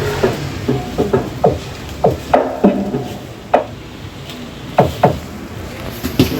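About a dozen irregular knocks and thuds, unevenly spaced, each short with a quick drop in pitch, over a steady background of noise.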